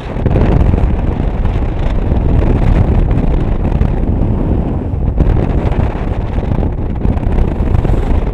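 Airflow of paraglider flight buffeting the camera microphone: loud, steady wind noise with a deep rumble.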